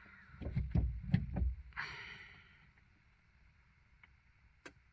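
A few dull knocks and a short rustle of someone handling things, then near silence with two faint clicks near the end.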